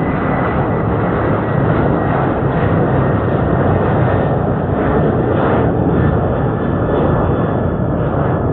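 Passenger jet's engines at takeoff power as the plane climbs away: a loud, steady rumble with a faint high whine that slowly falls in pitch.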